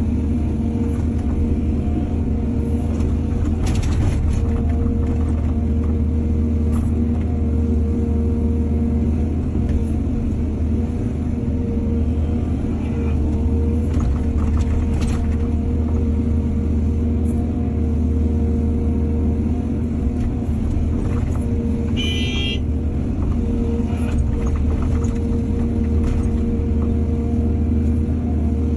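Heavy diesel engine of an excavator running steadily, with scattered knocks and clanks from the digging and loading. About two-thirds of the way in there is a brief high-pitched squeal.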